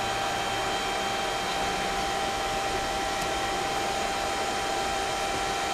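Steady mechanical whir with a constant thin whine above it, unchanging throughout.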